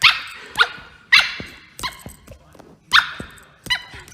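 A dog barking repeatedly: about six short barks, each dropping in pitch, some louder than others.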